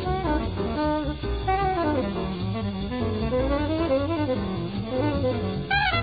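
Jazz recording of a tenor saxophone soloing, its line winding up and down over a double bass. Near the end another horn breaks in with a fast high run.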